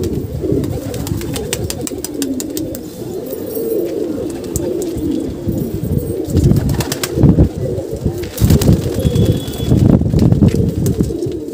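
Several domestic pigeons cooing together: low, warbling coos that overlap without a break, with scattered sharp clicks and taps.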